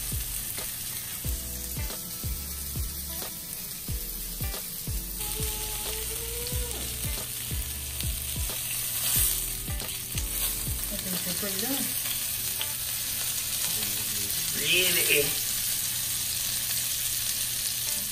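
Duck breasts sizzling steadily as they sear in rendered duck fat in a frying pan, turned over with tongs.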